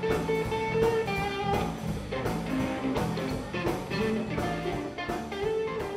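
Background music: a bluesy guitar tune over a steady drum beat.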